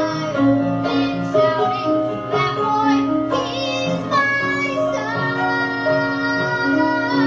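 Song with a high singing voice over instrumental backing, the voice holding a long note near the end.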